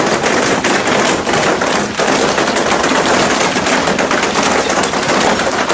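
Heavy hail pelting down, a loud, dense, unbroken rattle of countless hailstones striking hard surfaces.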